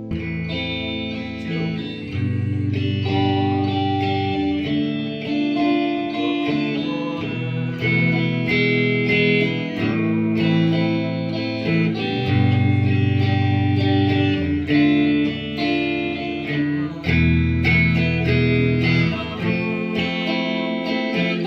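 Background music led by guitar, with a bass line and notes that change about every second.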